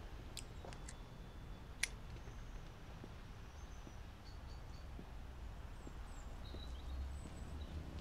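Quiet outdoor ambience with a steady low rumble. A few light clicks come near the start, the sharpest about two seconds in, from a cigarette lighter being flicked. Faint bird chirps follow.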